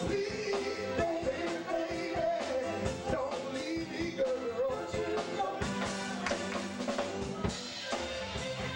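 Live band music with drums, and a man singing lead into a microphone.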